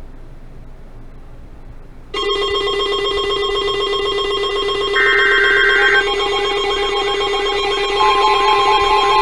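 Emergency Alert System alert signal starting abruptly about two seconds in: several steady electronic tones sounding together. A brief higher burst about a second long comes near the middle, and another tone joins near the end. It is the signal that announces an incoming severe thunderstorm warning.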